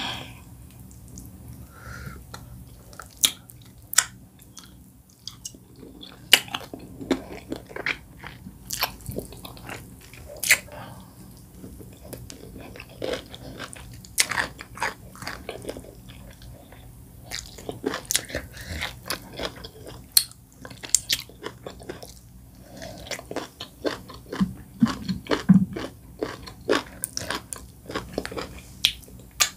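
Eating sounds: wet chewing and lip smacks with sharp, irregular crunching bites, as pieces from a bitterleaf soup are eaten by hand.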